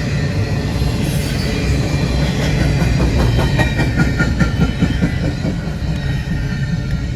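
Freight train cars rolling past, a steady heavy rumble with the wheels clacking over rail joints, most densely in the middle stretch.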